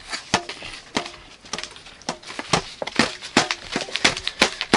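An inflated blue toy balloon tube being handled and batted about, giving a quick, irregular run of rubbery squeaks and knocks, about three a second.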